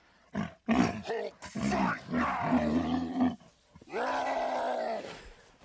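Camel groaning calls: a few short ones, then two long drawn-out groans, the last held almost level for about a second before it drops away.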